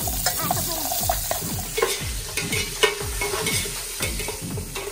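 Garlic, lemongrass and kaffir lime leaves sizzling in hot oil in an aluminium pot, stirred with a metal ladle that scrapes and clinks against the pot in regular strokes, about two or three a second.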